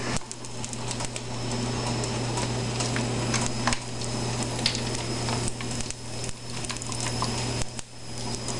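Scattered light clicks and taps of a Tajín seasoning bottle being uncapped and shaken over a bowl of diced rutabaga, over a steady low hum.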